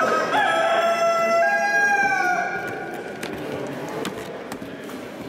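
A rooster crowing once, a long drawn-out crow held in two sustained parts that falls away at the end, about two and a half seconds long.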